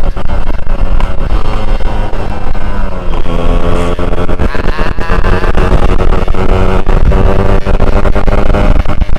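Yamaha RX-King's two-stroke single-cylinder engine running while the bike is ridden, its note changing about three seconds in and then holding steady.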